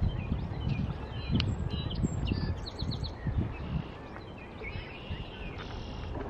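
Songbirds chirping and trilling in short, scattered calls over a steady low outdoor rumble.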